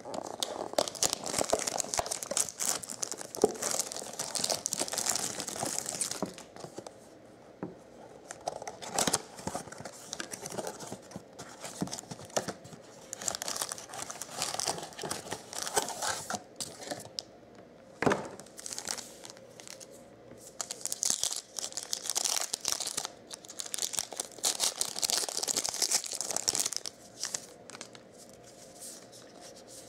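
Plastic shrink-wrap crinkling and tearing as it is pulled off a cardboard trading-card box, then the box's cardboard flaps being torn open, in several stretches of dense rustling broken by scattered clicks and one sharp snap partway through. Quieter card handling near the end.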